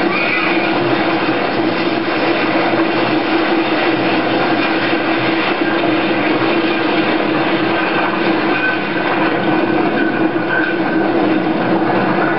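Film sound effects of a diesel locomotive crashing through a station building: a loud, continuous rush of grinding, crashing noise over a steady low hum, with brief metallic squeals near the start and again near the end.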